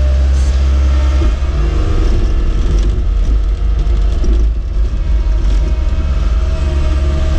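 Cat skid steer's diesel engine running steadily with a strong low drone, its note shifting slightly a little over a second in as the load changes.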